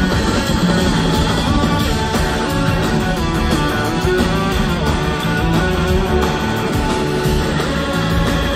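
Live blues-rock band playing, with electric guitar prominent over bass and drums.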